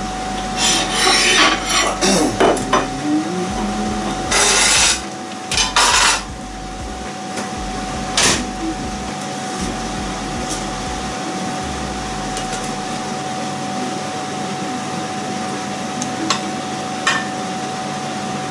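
Kitchen utensils scraping and knocking against cookware a few times in the first half, then a steady background hum with only a few light ticks.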